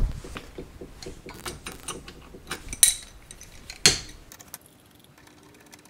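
Metal hand tools clicking and clinking on a steel mill spindle as its Belleville washer stack is tightened: a run of irregular light clinks, with two louder ones about three and four seconds in.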